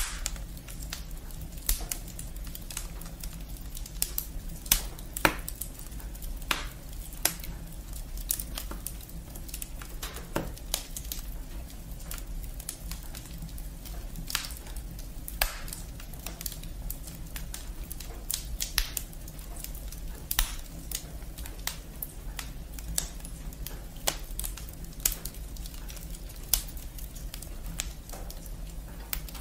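Wood fire of logs and twigs burning in a fireplace, crackling and popping irregularly over a steady low rumble.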